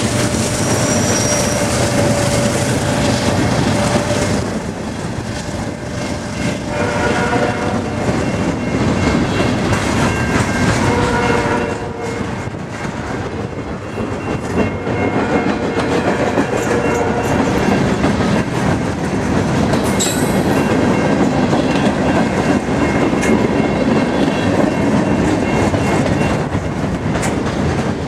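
Norfolk Southern freight train passing close by: a diesel locomotive at the start, then tank cars and boxcars rolling past with steady wheel clatter. Short squealing tones come and go.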